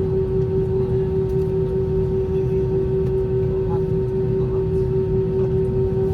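Airbus A320 cabin with the engines running at a steady low power: a constant whine over a low rumble, with no rise or fall in pitch.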